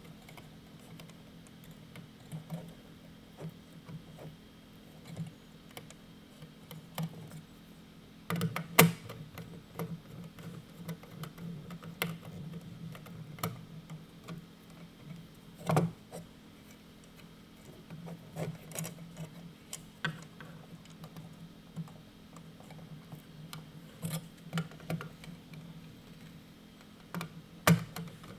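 Irregular small clicks and taps of a screwdriver turning terminal screws and thermostat wires being pushed into a pump controller's terminal block, a few sharper clicks standing out.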